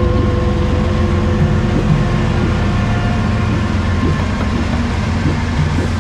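Freight train rolling past: a steady, continuous rumble of wheels on rail.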